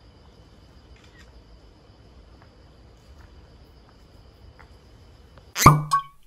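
Crickets chirping steadily and faintly in a high, continuous trill. Near the end comes a brief loud sudden sound, an edited-in effect, and then silence.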